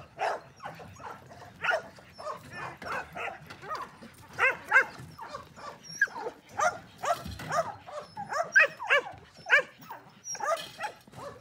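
A dog barking and yipping over and over, in quick irregular runs of short barks, loudest about four seconds in and again near the end.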